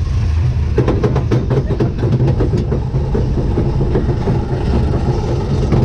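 Caterpillar kiddie roller coaster car running along its steel track: a steady rumble, with a rapid run of clattering clicks starting about a second in and lasting a couple of seconds, then a rattling rumble.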